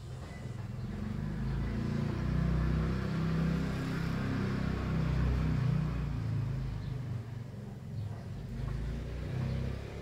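Low rumbling noise with a hiss over it, building over the first two seconds, holding, then easing after about seven seconds.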